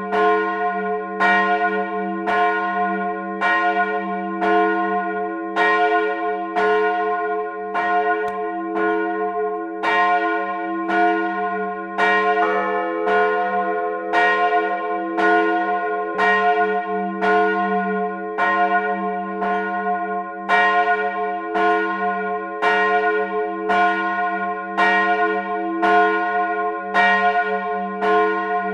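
Two swinging bronze church bells, tuned f' and as', ringing together in full peal, recorded close up in the bell tower. The strikes fall about one to two a second at uneven, overlapping intervals, each ringing on under the next.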